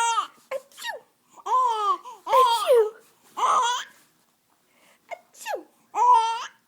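Baby giggling and babbling in a string of short, high-pitched bursts with gaps between them.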